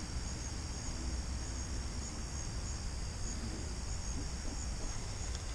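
Insects trilling steadily in the pondside vegetation, a continuous high chorus, with a low rumble underneath.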